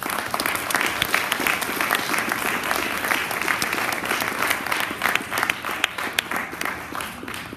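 Audience applauding: dense clapping that starts all at once and thins out near the end.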